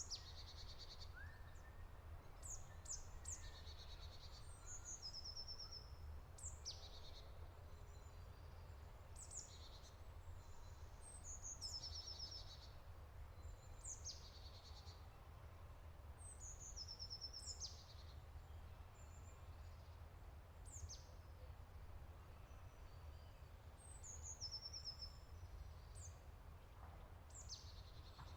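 Songbirds singing faintly: short, high song phrases of quick down-slurred notes and trills, repeated every two to three seconds, over a steady low rumble of background noise.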